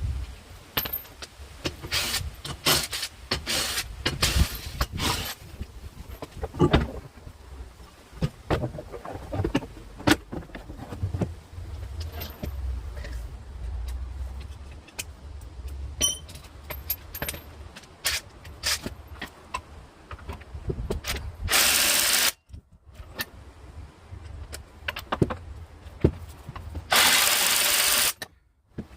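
Metal tools clinking and knocking against engine parts during hands-on engine work. Two short bursts of loud hiss come through, one about two-thirds of the way in and one near the end, and each cuts off suddenly.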